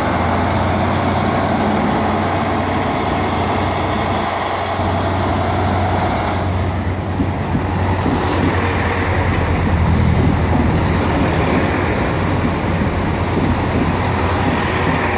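A Class 43 HST diesel power car runs with a steady low hum. About six seconds in, a diesel multiple unit rolls past close alongside the platform with a heavier rumble of wheels and engine, and there are brief high squeaks twice near the end.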